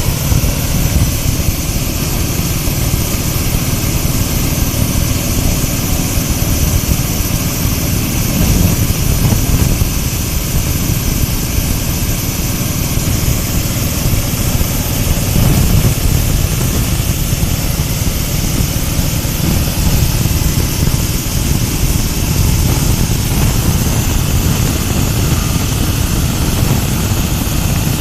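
Multipurpose animal-feed corn grinding machine running, a loud, steady mechanical rumble and rush without a break.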